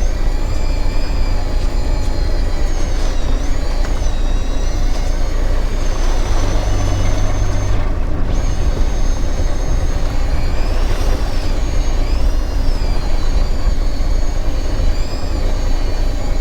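Steady, loud mechanical running noise aboard a fishing boat, heavy in the low end, with a thin high whine that wavers up and down in pitch.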